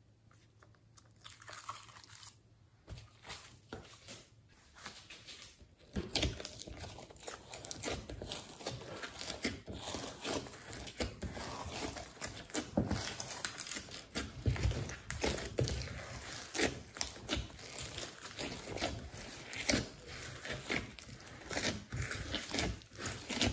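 Hands squishing and kneading glossy slime mixed with clay and foam beads: sticky crackling and crunching. It is faint at first and becomes dense and steady from about six seconds in.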